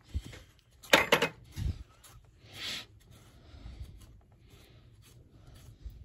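Handling noise: a quick cluster of sharp knocks about a second in, a dull thump just after, then a short scrape, over a faint room background.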